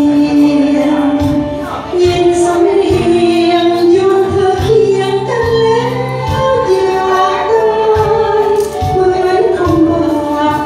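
A woman singing into a handheld microphone, holding long notes that slide and bend in pitch, over musical accompaniment with a steady beat.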